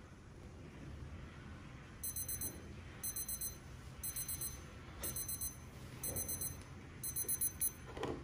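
Electronic timer alarm beeping: a high-pitched beep sounding in quick groups of about four, one group a second, six groups starting about two seconds in. A soft knock near the end.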